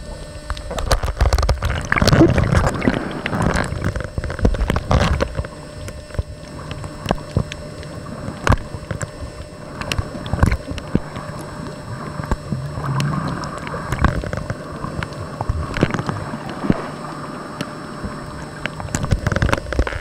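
Underwater sound of moving water and bubbling, loudest about two to five seconds in, with many scattered sharp clicks and knocks.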